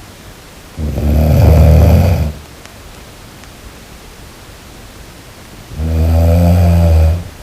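A person snoring loudly: two long snores about five seconds apart, each lasting about a second and a half.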